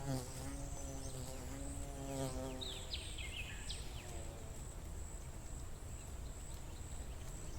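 A flying insect buzzing close by, a steady droning hum that fades away a little under three seconds in. A few quick, high, falling bird chirps follow about a second later, over a thin steady high whine and a low rumble.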